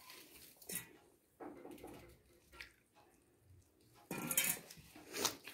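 A hand mixing maize flour and water in a metal pan, fingers rubbing and scraping the crumbly dough against the metal. The scraping is soft and scattered at first, then louder from about four seconds in.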